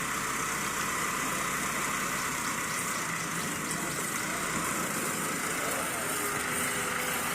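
An engine running steadily, with faint voices over it in the second half.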